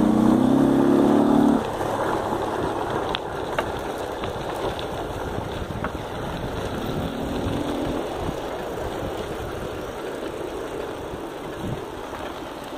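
A motorcycle engine running close by, steady for about the first second and a half, then dropping away abruptly; its hum comes back faintly a few seconds later before fading.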